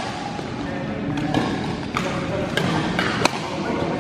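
Badminton rally: about four sharp racket strikes on the shuttlecock, spaced under a second apart, over a murmur of voices echoing in the hall.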